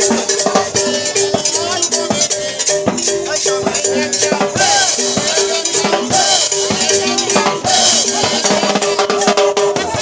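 A live dance band playing an upbeat number, with a steady drum beat and shaken percussion under sustained melody lines.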